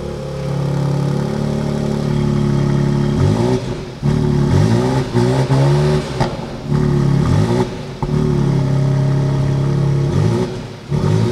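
BMW X4 M Competition's twin-turbocharged 3.0-litre inline-six idling while parked, blipped repeatedly through its quad exhaust. The revs rise and fall quickly in a run of blips from about three seconds in, with a last blip near the end.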